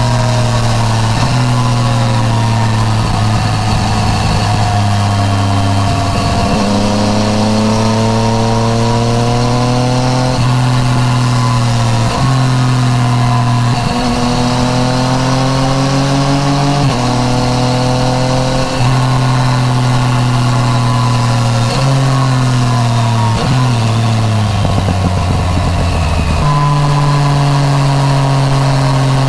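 Yamaha MT-09 Tracer's inline three-cylinder engine through an Akrapovič titanium full exhaust, its revs rising and then dropping sharply several times as it pulls through the gears. A little over two-thirds through, the pitch steps down several times in quick succession as the revs fall, with wind rushing past throughout.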